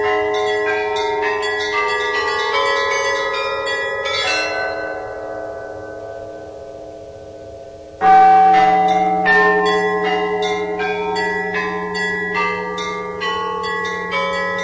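Church bells of a Russian belfry (zvonnitsa) ringing: rapid strikes on several bells of different pitches, the sound dying away about four seconds in. Near the eight-second mark a new peal starts loudly with a deep low bell under the quick higher strikes.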